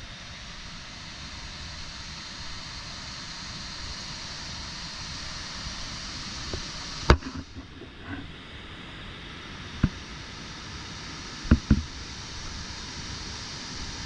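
Steady outdoor background noise with a few sharp knocks: the loudest comes about seven seconds in, a single one about ten seconds in, and a close pair near the end.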